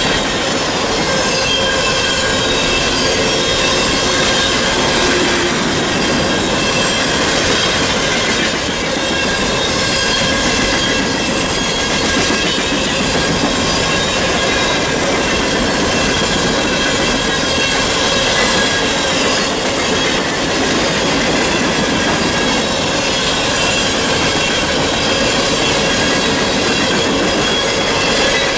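Empty Norfolk Southern coal hopper cars rolling past close by, their steel wheels rumbling and clattering on the rails, with a steady high wheel squeal on top.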